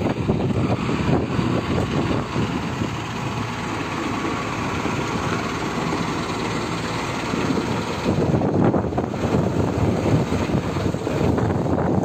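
Strong wind buffeting the phone's microphone in a loud, continuous, gusting rumble that swells near the end.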